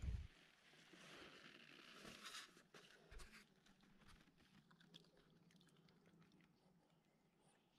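A thump at the start and some rustling, then faint, sparse crunching of a Boston terrier chewing dry kibble from a stainless steel tin.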